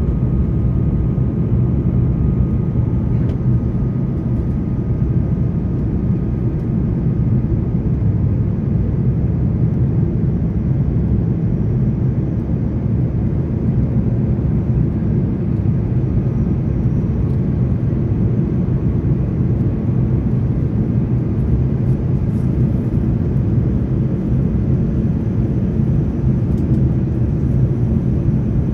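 Airbus A330 cabin noise at a window seat during descent: a steady low rush of engine and airflow noise, even throughout.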